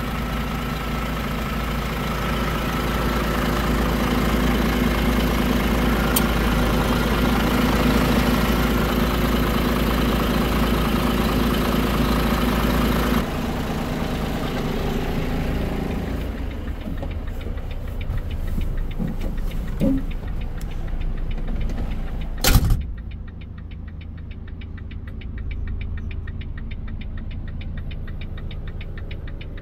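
Volvo FE 250.18 truck's six-cylinder diesel engine idling steadily, close up at the open front panel. The level drops suddenly and the idle carries on more faintly. About three quarters of the way through a door slams once, and from then on the idle sounds muffled from inside the cab.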